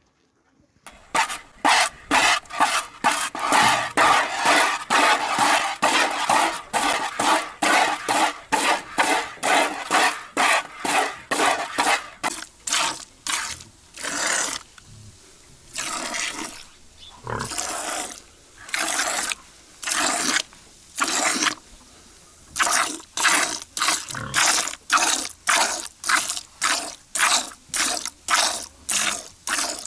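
Milk squirting from a cow's teats into a bucket as the cow is milked by hand: quick rhythmic squirts, about three a second, starting about a second in, then slower and less even with a few short pauses in the second half.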